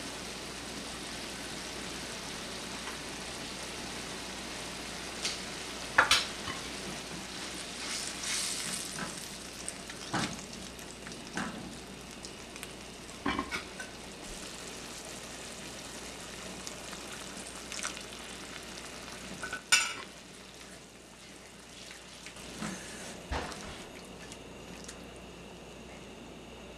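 Tamarind and onion curry sauce bubbling and sizzling steadily in a nonstick wok, its spice powder cooking in. Now and then a utensil clinks or knocks against the pan.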